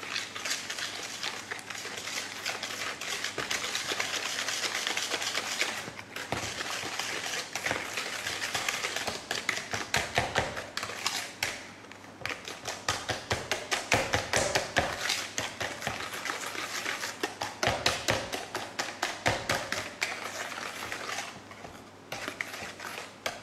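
Wire balloon whisk beating a runny mixture of melted butter, brown sugar and egg in a plastic bowl: a fast, continuous clicking and tapping of the wires against the bowl, pausing briefly a few times.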